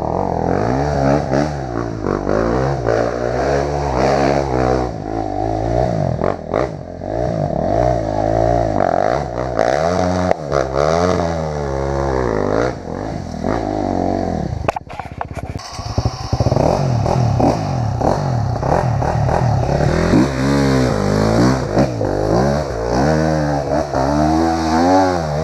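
Honda CRF250F dirt bike's single-cylinder four-stroke engine, ridden on a slippery trail, with the throttle opened and closed over and over so the pitch rises and falls in quick swells.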